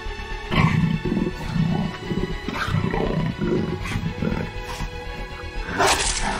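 Big-cat growl sound effect: a long, deep growl in repeated pulses over background music, followed by a short, harsh snarl near the end.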